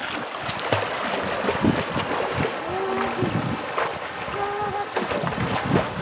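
Shallow mountain stream running and splashing over rocks, with scattered splashes of people wading and paddling in it. A couple of brief cries from a voice come in the second half.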